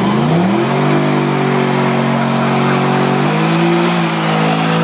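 Mercedes E63 AMG's V8 held at high revs in a burnout, the tyres spinning with a steady hiss over the engine. The revs climb in the first second, hold, drop slightly about three seconds in, and cut off near the end.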